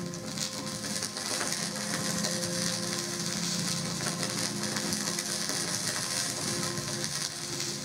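Live laptop electronic music: a dense crackling, grainy noise texture held over several sustained low drone tones.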